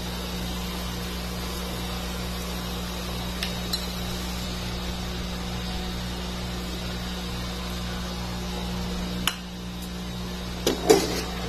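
Steady low hum, with a few light clinks of a metal spatula against an aluminium pot as sliced pork liver is stirred. A short clatter of knocks comes near the end.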